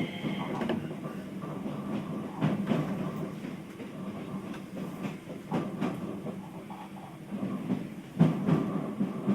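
Keio new 5000 series electric train running, heard from inside the passenger car: a steady rumble of wheels on rail, with pairs of clicks every few seconds as the bogies cross rail joints.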